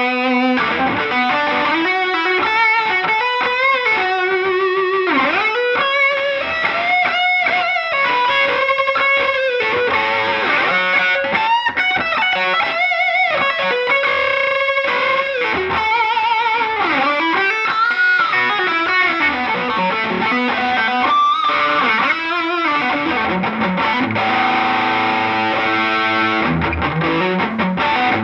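2019 Gibson Les Paul Classic electric guitar with Zebra pickups, played through an MXR M75 Super Badass Distortion pedal and amp. It plays a distorted lead line of single notes with string bends and vibrato, and a held chord near the end.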